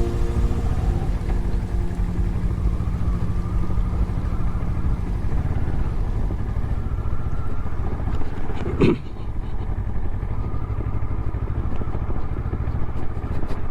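Motorcycle engine running on the move, with steady wind and road rumble on the microphone and a single brief knock about nine seconds in. Background music fades out in the first few seconds.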